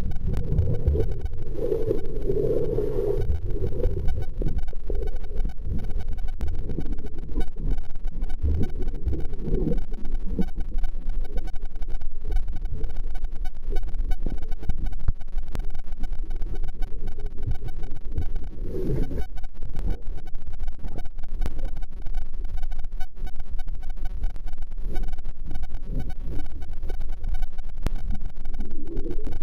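Underwater sound picked up by a submerged camera: a dense, muffled low rumble of water moving around the housing and the swimmer, with louder swishes about two seconds in and again past the middle.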